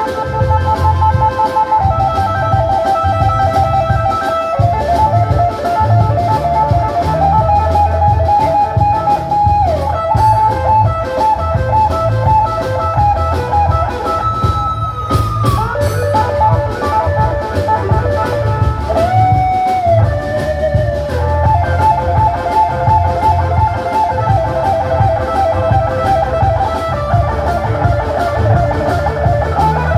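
Instrumental band music: a guitar plays a sliding melody over bass and drums, with a brief break in the melody about halfway through.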